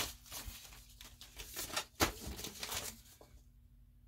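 Irregular rustling and handling noises from hands at a work bench, stopping about three seconds in.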